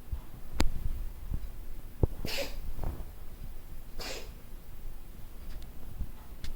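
Cat coughing: two short, breathy hacks about a second and a half apart, with a sharp click before them. The cough is frequent and new, and the owner fears it may be asthma or a lung problem rather than a hairball.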